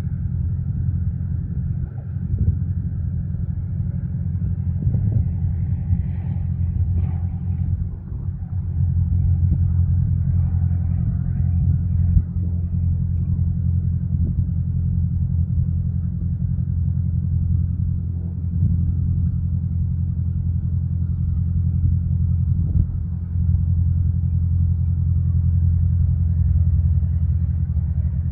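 Piper PA-28R-200 Cherokee Arrow II's four-cylinder Lycoming engine and propeller running steadily with a low, even drone.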